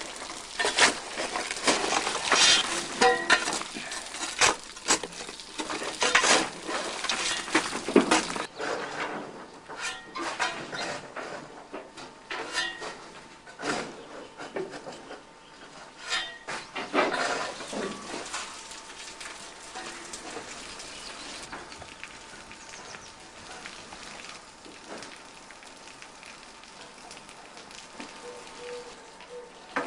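Irregular metallic clanks and scrapes from crew working on an LMS Stanier 8F steam locomotive, busiest in the first half. These give way to a steadier hiss of escaping steam.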